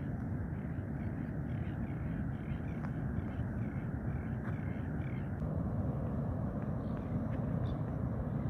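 A bird calling in a quick run of short repeated notes, about two or three a second, which stops about five seconds in. Under it runs a steady low rumble, the loudest part.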